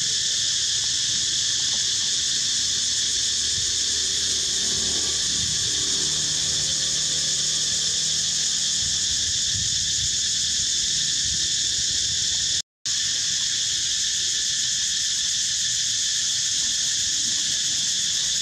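Dense, steady, high-pitched chorus of insects, continuous throughout, that breaks off for a split second about two-thirds of the way in.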